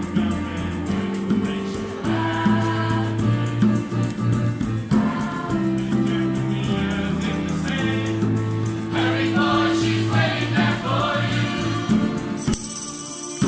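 Mixed youth choir singing sustained chords in several parts, with a tambourine keeping a fast steady beat.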